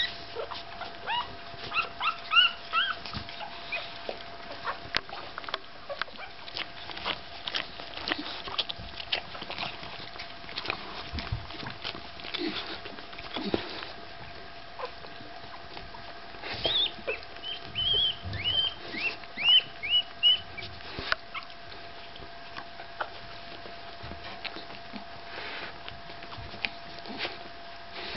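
Five-day-old Staffordshire Bull Terrier puppies squeaking and whimpering in short, high-pitched cries, in two bursts: near the start and again about two-thirds of the way through. Small clicks and rustles from the puppies shifting and nursing go on throughout.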